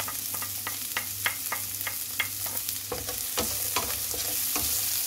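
Chopped onion sizzling and popping in hot oil in a frying pan, with a wooden spatula stirring it through the pan in the second half.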